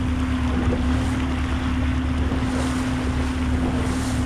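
Boat engine running steadily at trolling speed, an even hum under wind and water noise.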